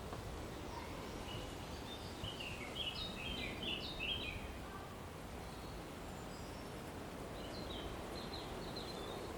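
Outdoor ambience of a cemetery in the afternoon: a steady low rumble of background noise, with songbirds chirping. A quick run of chirps comes about two to four seconds in and another near the end.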